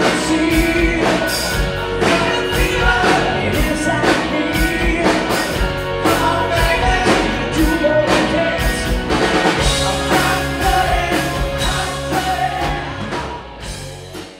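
Live rock band playing: a male voice singing over electric guitars and a drum kit keeping a steady beat. The sound fades out over the last couple of seconds.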